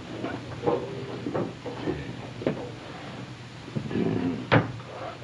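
Scattered wooden knocks and clicks of someone handling wooden furniture, with a sharp wooden knock about four and a half seconds in, like a drawer or cupboard being worked.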